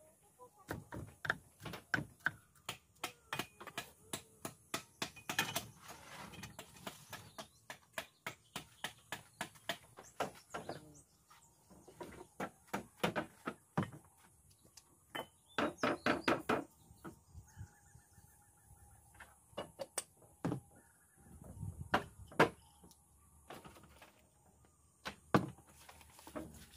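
Cleaver chopping garlic on a wooden chopping block: a quick, steady run of strikes, about two or three a second, for roughly the first ten seconds. Then scattered knocks and clatter as kitchen items are handled.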